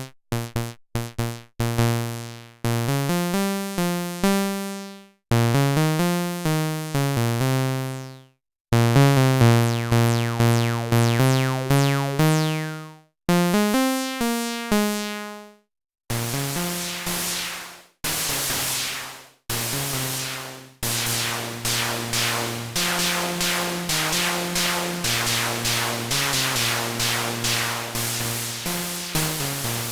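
Behringer CRAVE semi-modular analog synthesizer (single 3340 oscillator, ladder filter) played dry with no effects: a sequence of short, decaying bass-register notes stepping in pitch, with brief pauses between phrases. About halfway through the sound turns bright and buzzy, with a fast pulsing pattern over held low notes.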